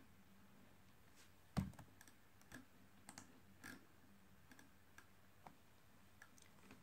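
Faint, irregular clicks and taps from a laptop being used to step through images, about ten in all, with one louder tap about one and a half seconds in.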